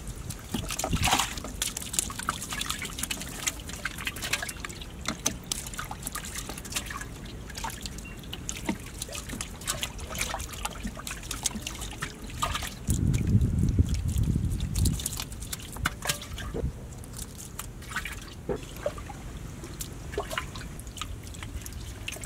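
Shallow muddy water trickling and dripping with many small irregular splashes, as a fish moves in the water of a mud fish trap. A low rumble lasts about two seconds midway through.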